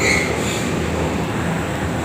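Steady machine drone with a low hum, and a brief high-pitched squeak right at the start.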